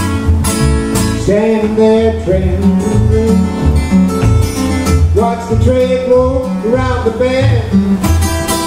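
Two acoustic guitars strumming a steady rhythm, with a man singing into a microphone in two phrases, about a second in and again about five seconds in.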